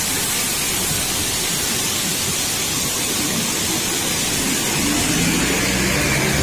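Steady rushing hiss of a waterfall. From about five seconds in, a truck's engine hum grows louder as the truck comes up and passes near the end.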